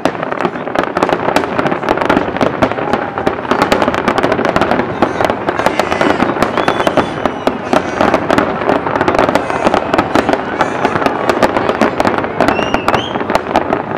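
Fireworks display at full barrage: a dense, unbroken rapid crackle and popping of many shells bursting at once.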